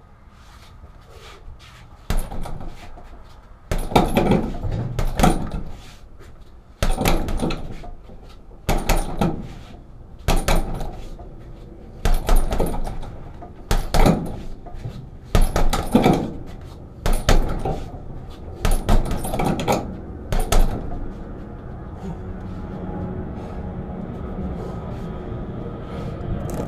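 Punches landing on a 45 kg heavy bag: a run of hard thuds, one every second or two and sometimes two in quick succession, each dying away briefly. The hits stop a little over two-thirds of the way through, leaving a steady low noise.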